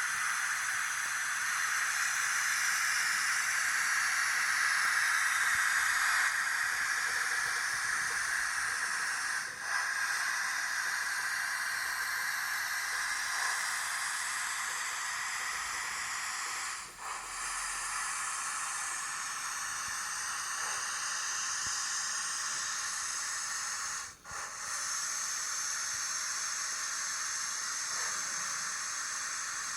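Steady steam hiss played by a QSI sound decoder in an HO-scale model of a Taiwan Railway DT668 steam locomotive. It dips briefly about every seven seconds.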